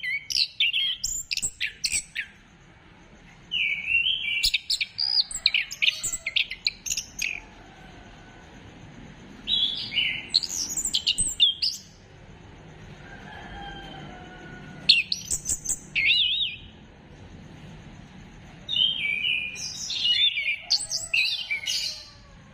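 Chestnut-capped thrush (anis kembang) singing in bursts of rapid, varied whistled phrases, five bursts of a few seconds each with short pauses between.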